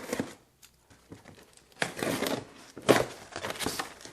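Crinkling and tearing of plastic packaging being unwrapped, with a sharp crackle about three seconds in.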